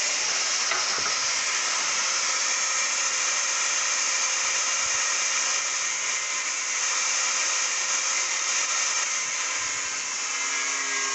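Angle grinder cutting into the steel of a motorcycle exhaust muffler, a steady hiss with a faint whine, to open it and remove the internal baffle. It starts and cuts off abruptly.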